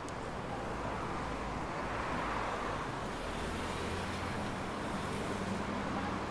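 Street traffic: the tyre-and-engine noise of a passing vehicle swells about two seconds in, then a low steady engine hum comes in after about three and a half seconds.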